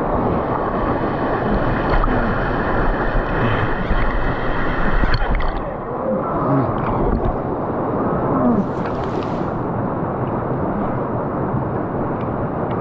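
Loud rushing and sloshing water close to the microphone, with a brief hissing splash about nine seconds in.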